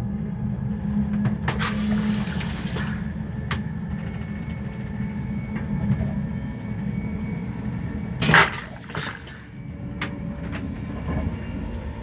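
Virgin Pendolino train's vacuum toilet flushing: a steady low hum stops about two seconds in as a hiss of water runs into the stainless-steel bowl, then a short, loud whoosh of suction comes a little past eight seconds.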